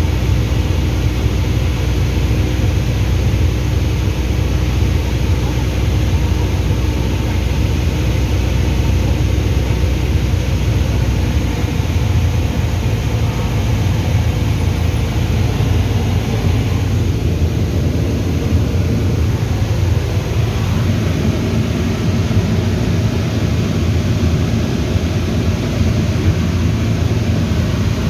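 Light aircraft's piston engine and propeller droning steadily. About 11 seconds in, one steady tone in the drone stops and the low engine note shifts slightly.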